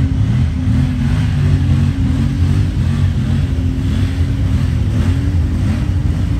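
Honda Talon side-by-side's engine running hard, its revs rising and falling repeatedly as it pushes through deep mud and water.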